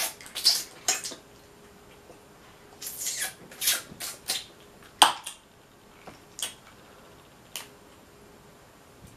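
Close-up eating sounds of someone eating boiled Dungeness crab: wet mouth smacks and sucking in short clusters, with one sharp click about five seconds in.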